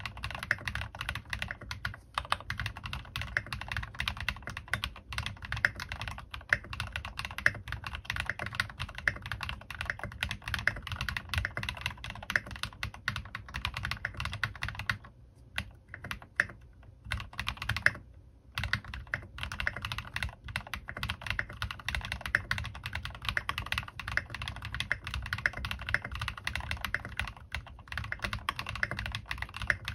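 Fast continuous typing on a Bahm Studio Droplet custom mechanical keyboard with linear switches (Cherry MX Black housings with Tecsee Vintage stems, lubed with Krytox 205g0) and Maxkey Ka keycaps: a steady run of key strikes, broken by two short pauses about halfway through.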